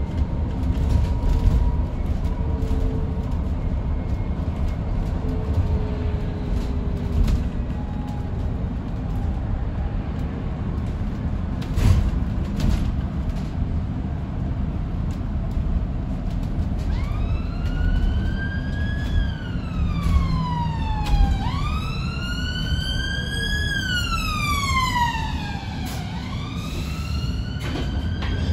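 Steady low road rumble inside an electric double-decker bus (Alexander Dennis Enviro400EV) on the move. About two-thirds of the way in, an emergency vehicle's siren starts wailing outside, in slow rising and falling sweeps that carry on to the end.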